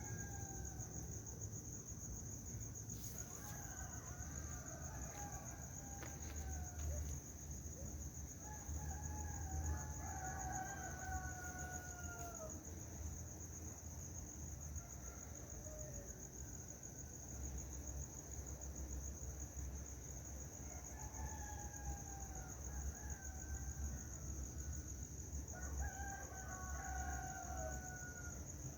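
A bird's drawn-out calls, about half a dozen, each falling in pitch at the end. They sound over a steady high-pitched drone and a low rumble.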